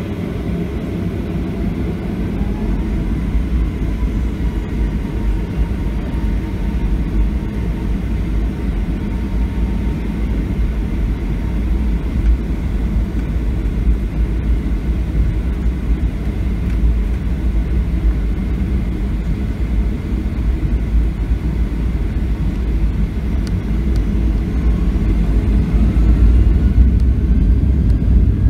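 Boeing 737-700's engines spooling up for takeoff, heard from inside the cabin: a deep rumble that grows steadily louder, with faint rising whines early on and again near the end as the jet begins its takeoff roll.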